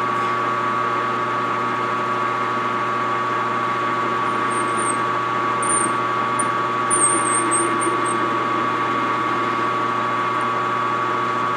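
Metal lathe running steadily with a constant hum and whine while a grooving tool takes light, hand-fed cuts in 304 stainless steel. Short, wavering high squeaks come in from about four to eight seconds in.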